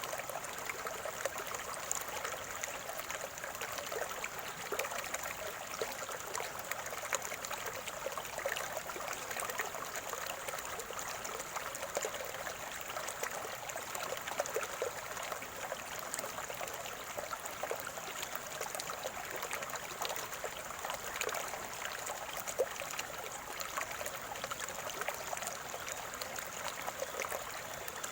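Shallow stream water trickling and gurgling, a steady even flow with many small splashes and no pauses.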